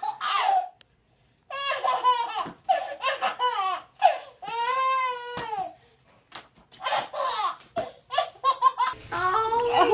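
Baby laughing hard in several separate bursts of high-pitched squealing laughter, one drawn out about five seconds in.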